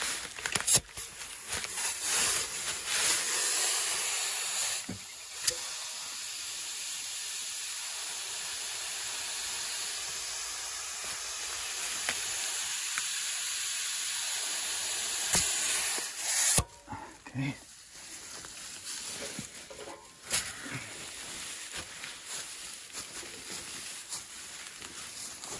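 Compressed air hissing steadily at an old car tire being inflated, then cutting off abruptly about sixteen seconds in, followed by a few light clicks and knocks.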